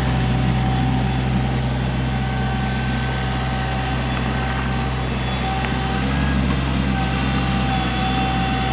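Diesel excavator engine running steadily, with a faint high whine that fades and returns.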